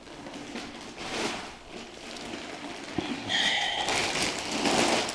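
Clear plastic bag rustling and crinkling in uneven swells as it is pulled off foam packing blocks, with a short squeak a little past three seconds in.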